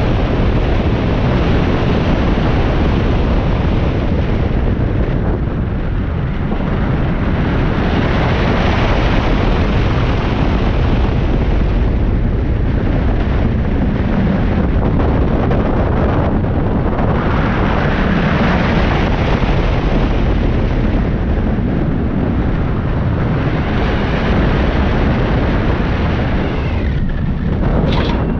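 Loud rushing wind on an on-board microphone over the rumble of the Orion giga coaster's train (Bolliger & Mabillard) running on its steel track at speed. The noise swells and eases every few seconds as the train goes over hills and through turns.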